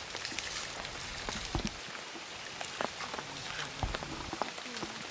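Light rain on a pond's surface: a steady hiss dotted with many small drips and plops.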